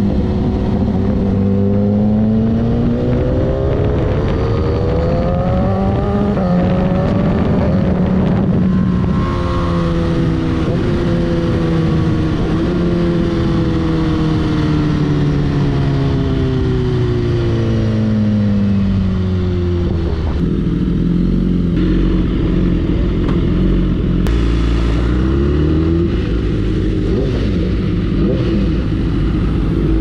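BMW superbike's inline-four with an Akrapovič exhaust under way: the engine pitch climbs over the first several seconds as it accelerates, falls slowly for about ten seconds as it rolls off, then runs lower and steadier with a short rev-up near the end.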